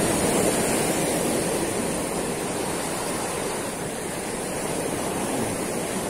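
Sea surf washing and foaming over shoreline rocks: a steady rush of water that eases a little around the middle and swells again near the end.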